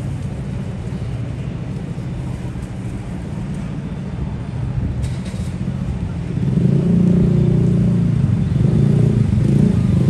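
Street traffic: a motor vehicle's engine running close by with a low, pulsing drone, growing louder about six and a half seconds in.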